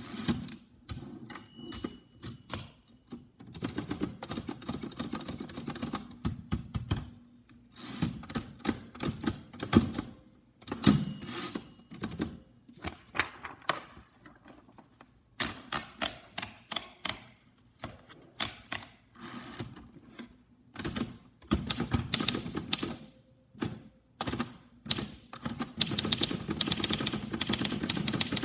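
A 1930 Royal Model P portable typewriter being worked: bursts of fast key and typebar clacks, carriage strokes and single knocks. A short bell ring about a second in and again about eleven seconds in, and steady typing from about 26 seconds.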